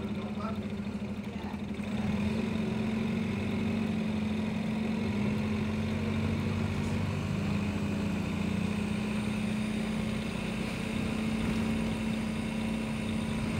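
Minibus engine and road noise heard from inside the passenger cabin, a steady drone that gets a little louder about two seconds in.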